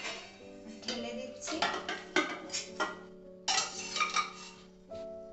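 Metal pressure cooker and steel kadai clinking and scraping as cooked mutton curry is tipped out of the cooker and scraped out with a spoon: a run of irregular metallic clinks and scrapes.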